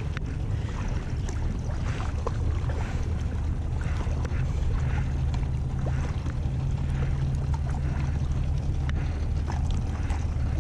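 Boat motor running steadily with a low, even droning hum, over the wash of water and light wind noise.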